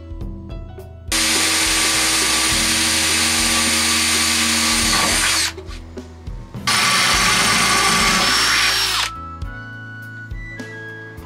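Cordless drill running in two bursts, about four seconds and then about two and a half seconds, boring holes into the bare inner panel of a van's back door, its motor whine steady through each run.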